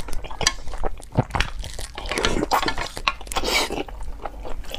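Close-miked eating of glass noodles: wet slurping and chewing with irregular mouth clicks and smacks, and longer slurps a little after two seconds and around three and a half seconds in.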